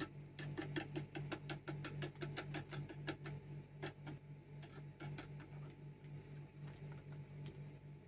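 A spoon stirring a liquid mixture in a mixing bowl, clicking against the bowl rapidly at about five strokes a second, thinning to scattered clicks about halfway through as cornstarch is poured in from a paper packet. A steady low hum runs underneath.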